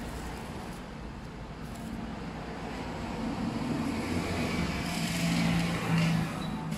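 Electric nail drill running with a steady motor hum, growing louder and hissier about four to six seconds in.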